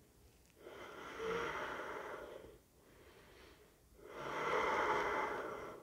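A man's slow, audible breathing through the nose: two long breaths, each about two seconds, with a short pause between them.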